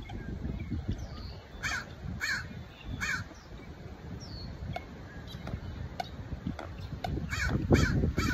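Crows cawing: three short caws about a second and a half in, then another three near the end, over a low wind rumble on the microphone.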